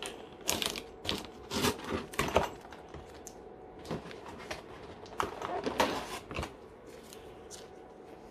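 Sticker seals on a cardboard kit box being picked at and torn open by fingernails, in short scratching and tearing sounds with rustling of the box and its plastic parts tray.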